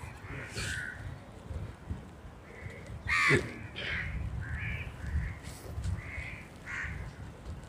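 Crows cawing, a string of short calls with the loudest a little over three seconds in, over a low rumble.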